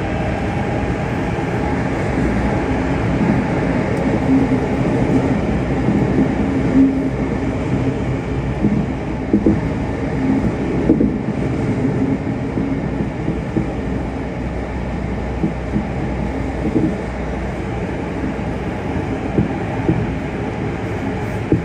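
Tokyo Metro 05 series subway train running at speed through a tunnel, heard from inside the car: a steady rumble of wheels and running gear with some steady tones over it. Occasional sharper knocks stand out every few seconds.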